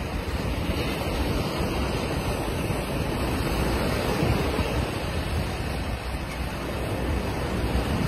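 Surf breaking and washing up the beach around the hull of a stranded sailboat, with wind noise on the microphone.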